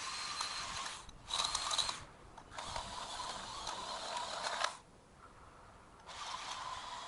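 Ryobi 40-volt cordless edger running with its blade set deep, cutting into the soil, with a steady motor whine. It cuts off and restarts several times, with the longest pause about five seconds in.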